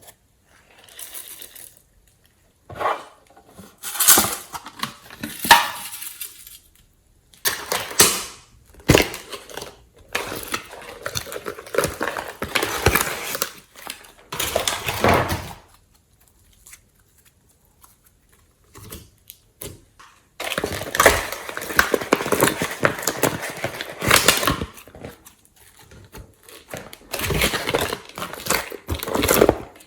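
Glossy slime being squished and kneaded by hand, in bursts of dense sticky crackling and clicking with quiet pauses between them.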